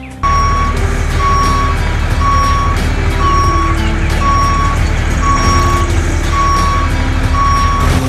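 Truck reversing alarm beeping about once a second, eight even half-second beeps, over a truck engine running. Both start abruptly at the outset.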